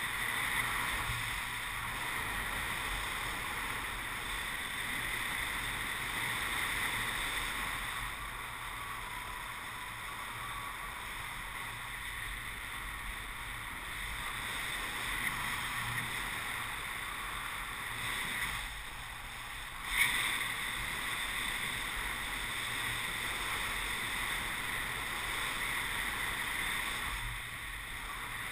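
Steady rush of airflow over the camera during paraglider flight. About two-thirds of the way through it dips briefly, followed by a single sharp knock.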